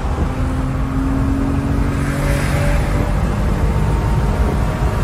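Inside the cabin of a BMW E34 at highway speed: steady engine hum under tyre and road noise.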